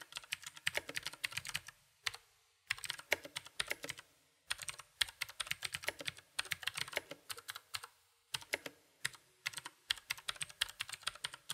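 Typing on a HyperX Alloy FPS mechanical keyboard with Cherry MX switches: rapid key clicks in four bursts with brief pauses between them, played to demonstrate how the keys sound.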